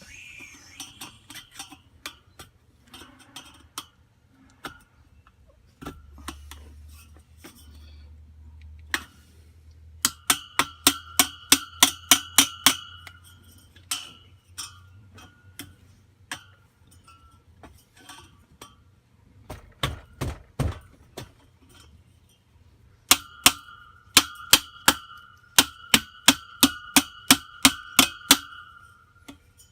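Metal being struck with a hammer in two runs of rapid, even blows, about four a second, each blow ringing briefly. Scattered lighter clinks come between the runs, with a few heavy dull thuds in the middle.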